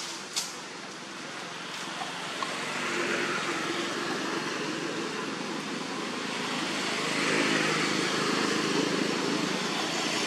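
A motor vehicle engine running, growing louder over several seconds, with a single sharp tap just after the start.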